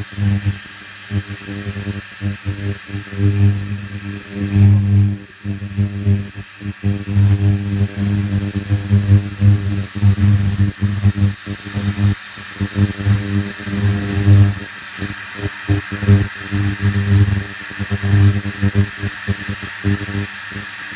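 Induction hob on its highest setting buzzing under a stainless-steel pressure cooker as it is brought up to pressure, a low hum that pulses and cuts in and out unevenly, with a thin steady high hiss above it.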